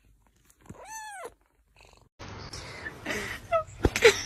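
A tabby kitten meows once, a short mew that rises and falls in pitch, about a second in. About two seconds in the sound cuts to a steady hiss with a few brief squeaks and a sharp knock, which are louder than the meow.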